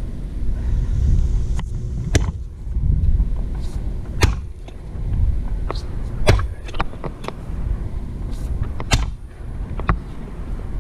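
Stump grinder's 13 HP Honda engine running steadily, with sharp, irregular cracks and clicks of wood chips and debris being struck and thrown.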